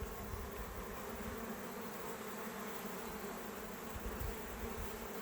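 Honeybees buzzing steadily around a skep hive being worked, an even hum.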